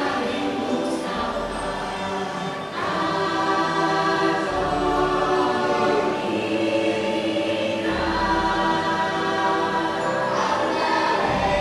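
Choral music playing from the ride's soundtrack: many voices singing held chords that change every few seconds, over deep bass swells.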